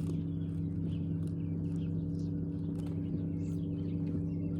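Small birds chirping over and over, many short chirps, above a steady low mechanical hum that holds one pitch throughout.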